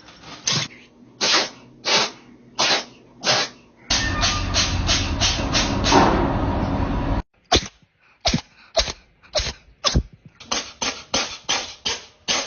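A rapid series of short sneezes, one every half second or so. In the middle a loud steady noise runs for about three seconds and cuts off abruptly, then the quick sneezes go on.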